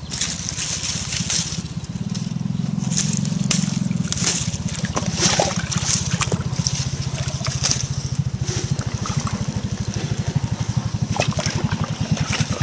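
An engine idling steadily with a low, fast-pulsing thrum, with scattered splashes and swishes of water from wading through the shallows.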